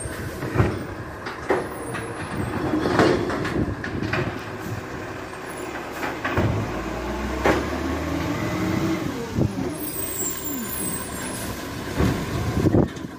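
Kerbside recycling truck working: its engine runs with repeated clunks and knocks, a low rumble about halfway through, and a few short whining glides.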